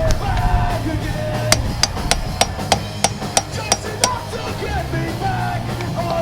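Rock music with a singing voice, and sharp, hard hits about two to three times a second.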